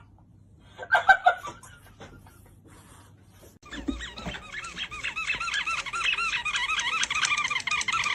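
A short squeaky burst, then from about four seconds in a warbling alarm-like tone that wobbles up and down about five times a second and grows louder.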